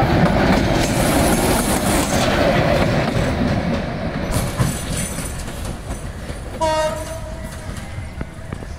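Passenger coaches rolling past on jointed track with a rhythmic clickety-clack, fading as the train draws away. About two thirds of the way through, a short horn blast lasting about half a second.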